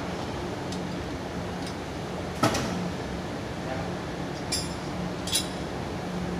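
Metal hand tools knocking and clinking against metal around a steel water pipe: one sharp knock about two and a half seconds in, then two bright, ringing clinks near the end, over a steady low hum.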